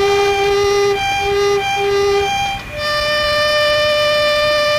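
Instrumental music from a 1985 home-made cassette: a slow melody of long held, steady notes. A couple of short notes come about a second in, and a new, higher held note follows just before halfway.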